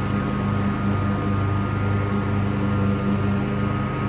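Commercial Bobcat zero-turn mower running steadily while mowing, its engine a low hum that throbs slowly in level.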